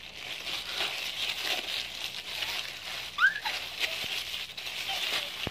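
Plastic courier bag crinkling and rustling as it is pulled and torn open by hand, with scattered crackles and a short high-pitched vocal squeal about three seconds in.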